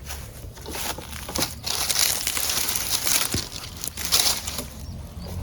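Irregular rustling and crinkling, loudest through the middle stretch, with a few sharper cracks.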